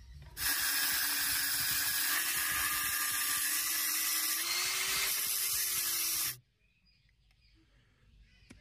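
Angle grinder cutting metal: a loud steady hiss over a motor whine. It starts about half a second in, the whine rises slightly in pitch near the middle, and it cuts off suddenly about six seconds in.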